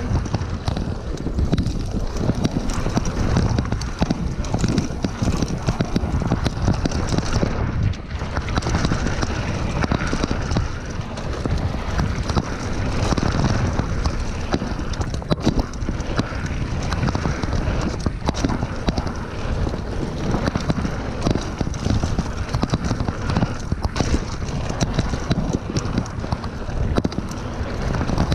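Mountain bike riding fast down a dirt trail: a steady rumble of tyres on the dirt with constant rattling and clattering of the bike over bumps, and wind buffeting the microphone.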